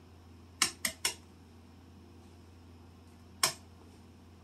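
Eggshell knocked against the rim of a bowl to crack it: three quick sharp taps about half a second in, then one more single tap about three seconds later.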